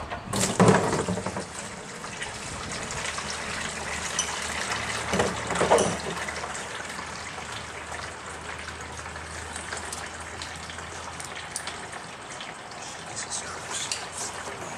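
Used engine oil pouring in a steady stream from the drain plug of a 1987 Porsche 911's dry-sump engine into a drain pan. There are two louder rushes, about a second in and again around five seconds.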